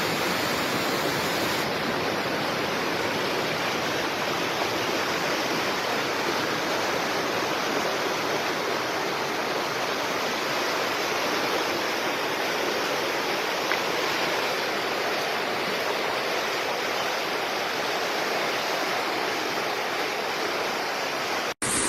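Steady rushing of water, an even, unbroken roar with no letup.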